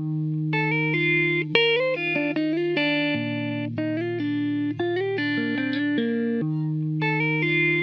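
Instrumental music: an electric guitar playing a melody of short notes over a held low note.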